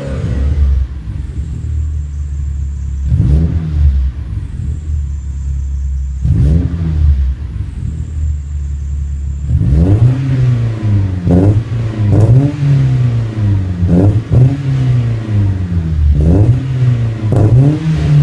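Two BMW 318i four-cylinder engines on aftermarket exhausts. First an E90 with a 335i rear exhaust section idles with two quick throttle blips. Then, about halfway through, an E36 with a Magnaflow exhaust is revved in a run of sharp blips about once a second in a parking garage.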